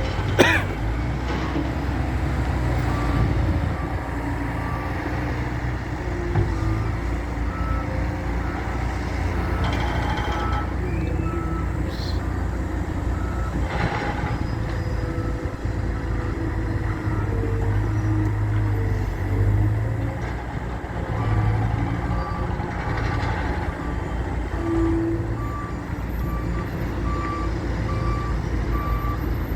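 Heavy loader diesel engine running under load, with its reverse alarm beeping in long stretches at two slightly different pitches. There is a sharp knock right at the start and a few clanks in the middle.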